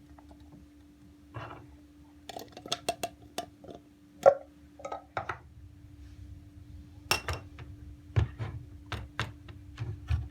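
Kitchen utensils clicking and clinking against dishes in two bursts of quick taps, some with a short ring, over a steady low hum.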